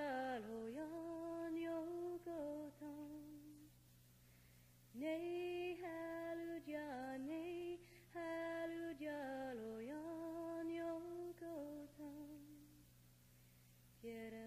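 A woman's voice singing a slow Hungarian lullaby in long held notes that glide from pitch to pitch. There is a pause a few seconds in, and the second phrase fades out before the end.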